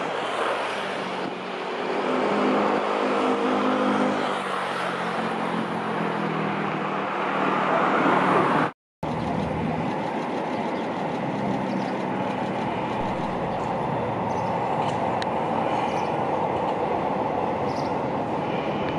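A train running past: an engine hum builds over the first eight seconds or so, cuts out abruptly in a brief dropout, then a steady rumbling noise carries on.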